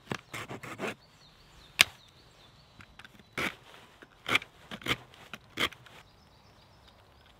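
Folding saw's teeth rasping against the end of a wooden stick in short strokes: a quick run of several strokes at the start, a sharp click about two seconds in, then single strokes every half second to second until about six seconds in.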